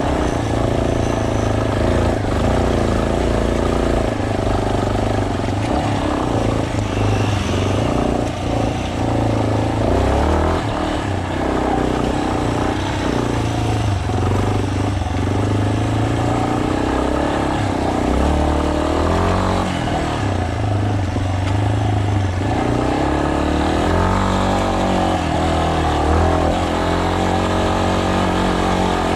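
Single-cylinder trail motorcycle engine running under way, its revs rising and falling steadily over the ride.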